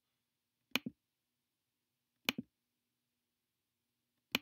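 Three computer clicks about a second and a half apart, each a quick pair of ticks from the button being pressed and released, as the points of a polyline shape are placed one by one.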